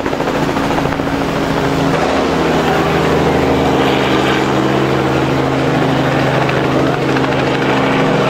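Light two-blade helicopter flying low overhead, its rotor giving a fast, steady chop.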